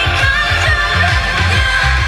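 Loud K-pop dance track played over a stage sound system, with a steady pulsing bass beat.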